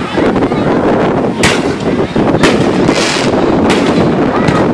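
Consumer fireworks going off: about five sharp bangs, roughly a second apart.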